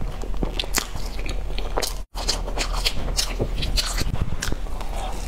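Close-miked eating sounds: chewing with many short wet mouth clicks and crackles while biting into a soft floss-coated bun. The sound cuts out for an instant about two seconds in.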